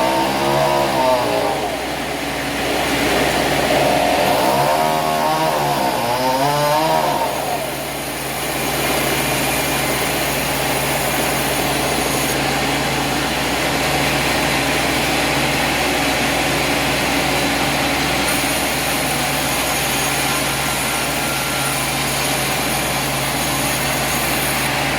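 An engine revving up and back down twice, then running steadily at an even pitch.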